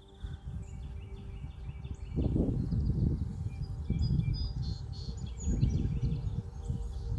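Faint bird chirps, over a louder low rumble that swells and fades every second or so from about two seconds in.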